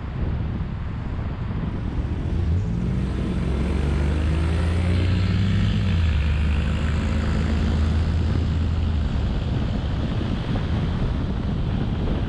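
Road traffic noise, with a heavy vehicle's engine droning past from a few seconds in until near the end, its pitch gliding a little as it goes by.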